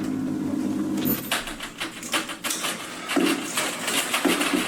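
Rapid, irregular clicking and rattling of a lock being fitted to a fridge door. A steady low hum stops about a second in, just before the clicking starts.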